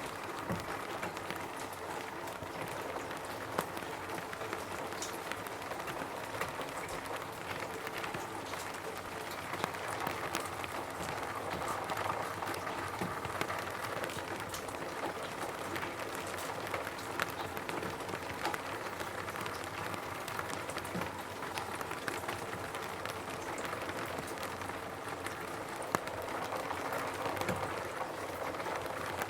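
Steady rain falling on a roof, a constant hiss with many separate drops tapping on it.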